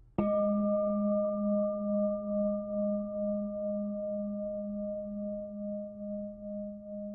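A singing bowl struck once, ringing on with a low, warm tone and a few higher overtones that slowly fade with a regular pulsing wobble.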